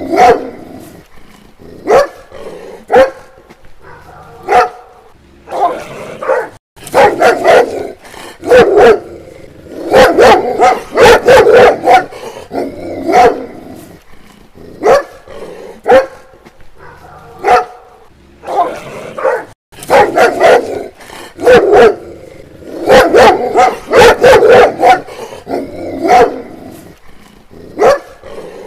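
A dog barking repeatedly, some single barks and some quick runs of several barks, with short pauses between.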